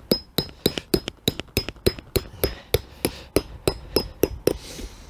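A tent peg being hammered into the ground with a mallet: a quick, even run of strikes, about three a second, each with a short metallic ring, stopping near the end.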